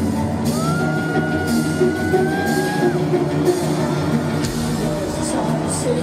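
Live rock band playing loudly in an arena, heard from the audience. About half a second in, a high voice holds one long, slightly rising note that breaks off after about two and a half seconds.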